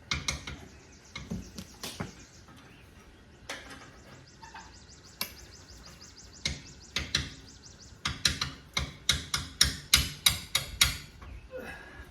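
Stock slip-on muffler of a Harley-Davidson Road Glide being knocked to work it loose from the exhaust pipe: scattered sharp knocks, then a quick run of about three to four knocks a second near the end, with light rapid ticking between.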